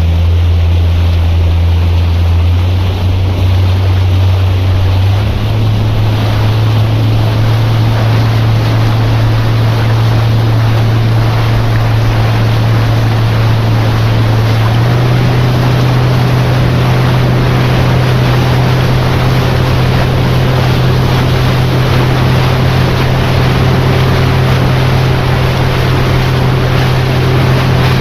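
Tour boat's motor running under way, its pitch stepping up twice, about five seconds in and again about fifteen seconds in, as the boat speeds up, over a steady rush of wind and water.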